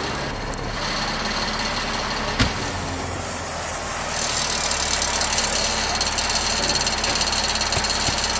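An engine running steadily at a helicopter refuelling point, with a sharp click about two and a half seconds in, after which a steady low hum and a high hiss come in.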